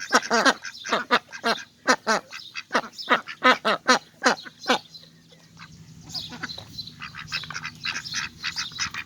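Ducks quacking: a run of loud, falling calls about two a second, giving way about halfway through to softer, quieter calls.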